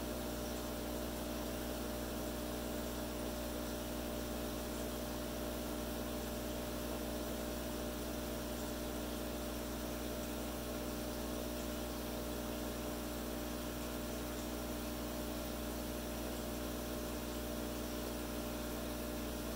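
Aquarium pump running: a steady mechanical hum with a hiss beneath it.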